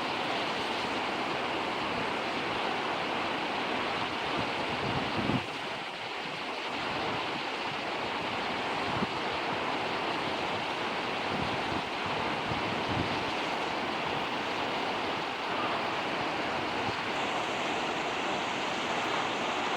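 Waterfall rushing steadily, with wind buffeting the microphone in low thumps now and then, strongest about five seconds in.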